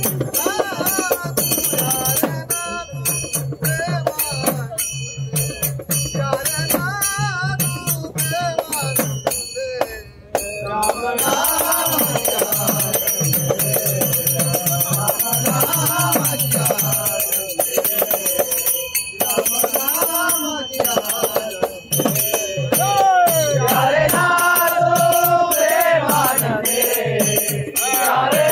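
Devotional bhajan sung by a group of men with a lead voice, over a steady hand-percussion beat and jingling metallic percussion; the low beat drops out a little past halfway while the singing goes on.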